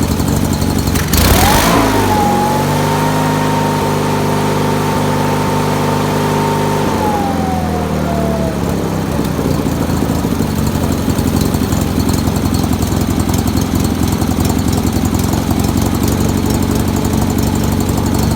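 Sears Suburban GT19.9 garden tractor engine running. About a second in it revs up and holds a steady high speed; around seven seconds in it falls back, then runs on steadily at a lower speed.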